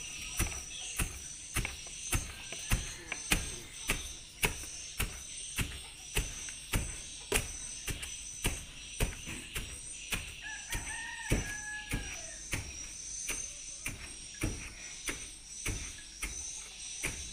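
Wooden pestle pounding cassava leaves in a plastic 5-litre can, a steady thud a little under twice a second as the leaves are crushed into pieces. A single drawn-out call that rises and falls sounds about ten seconds in.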